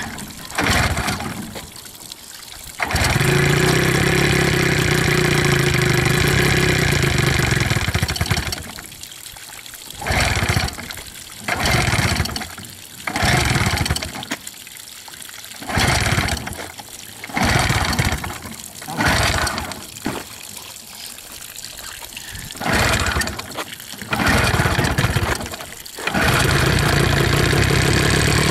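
1986 Evinrude 15 hp two-stroke outboard being pull-started on flushing muffs, its first start after sitting for the winter: it catches about three seconds in and runs for about five seconds, dies, then turns over briefly with each of a string of short pulls, and catches again near the end and keeps running. Water from the hose-fed muffs splashes under it.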